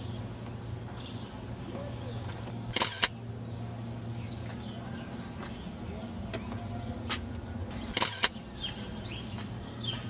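Steady low hum of street traffic with faint, scattered bird chirps. Two short, harsh bursts stand out, about three seconds in and again about eight seconds in.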